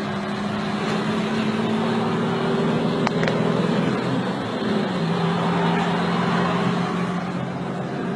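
Engine and road noise heard from inside a moving 4x4's cabin; the engine hum holds a steady pitch, then drops to a lower pitch about five seconds in. A couple of faint clicks come near the middle.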